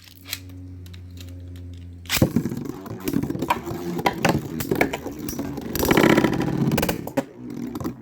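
Spinning Beyblade metal-wheel tops, Storm Pegasis and Flame Sagittario, humming steadily, then clashing in the stadium from about two seconds in: a fast run of clicks, knocks and scrapes as they collide, loudest about six seconds in.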